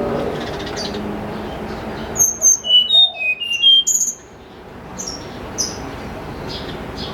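Tledekan gunung songbird singing a quick phrase of clear, high whistled notes, several sliding downward, for about two seconds near the middle, over steady background noise with fainter chirps.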